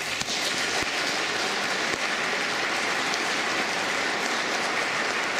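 Audience and musicians applauding steadily after a performance: dense, even clapping.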